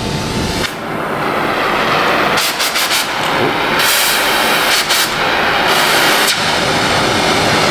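Cutting torch hissing steadily as it burns through the rusted, seized exhaust Y-pipe flange bolts, with a few sharp crackles partway through.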